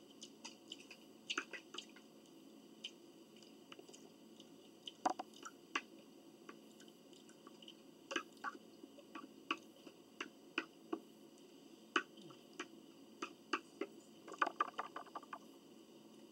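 People chewing and eating close to the microphone: scattered soft mouth sounds and small sharp clicks at irregular intervals, with a quick flurry of them near the end.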